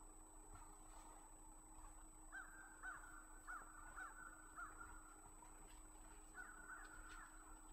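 A crow cawing faintly in a series of short calls, about five in a row, then another brief run near the end.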